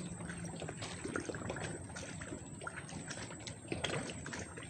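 Water trickling and lapping, with faint scattered clicks.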